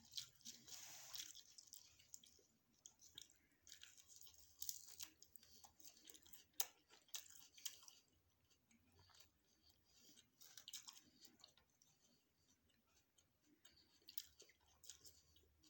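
Faint, close-miked chewing of food, with irregular small wet clicks and mouth sounds.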